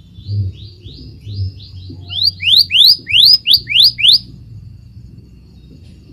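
Scarlet minivet calling: a run of about a dozen quick, upslurred whistles, a few per second, faint at first and then loud through the middle, stopping about four seconds in.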